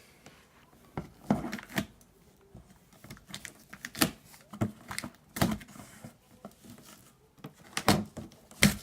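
Cardboard shipping box being handled and worked at to get it open: a series of irregular sharp knocks and clicks with some scraping.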